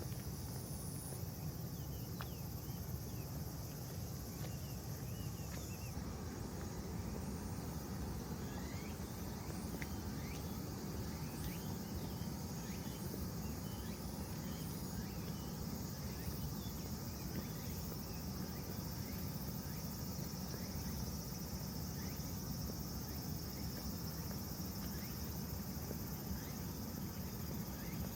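Steady low rush of the flood-swollen Sagami River, with insects trilling high and continuously over it and scattered short high chirps.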